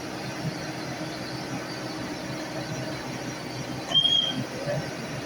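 Excavator running steadily with a low engine rumble. About four seconds in comes a sharp knock, followed by a brief high-pitched squeal.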